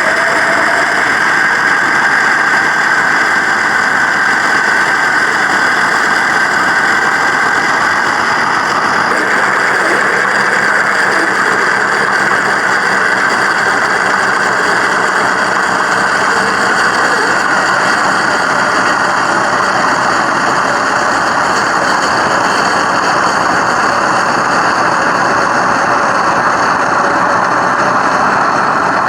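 Simulated engine sound from an FMS RC car's sound module, a recorded car engine note played through the model's small speaker, running steadily with small shifts in pitch.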